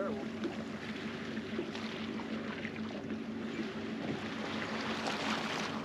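Water sloshing against a small skiff's hull, with wind on the microphone and a faint steady low hum underneath.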